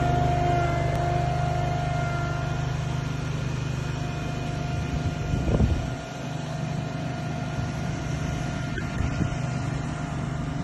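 A heavy machine's engine running steadily with a low pulsing hum and a steady whine over it, and a brief louder clatter about five and a half seconds in.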